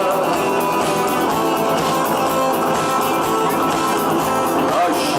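Rock music: an instrumental stretch carried by guitars, with no singing until just at the end.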